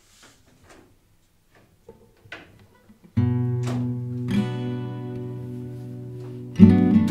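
Background music: an acoustic guitar strums a chord about three seconds in that rings on, then strums again near the end. Before the music, only a few faint knocks.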